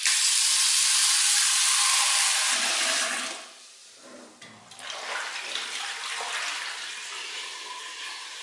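Tap water running hard into a cast iron Dutch oven in a stainless steel sink, stopping after about three seconds. The rinse water is then swished around the pot and poured out into the sink, a quieter sloshing.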